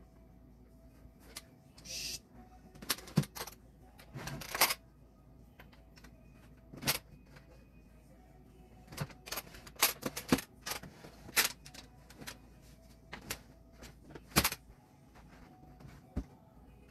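Irregular clicks and wooden knocks as dresser drawers are opened, pushed shut and handled, with short rustles of clothes being put away.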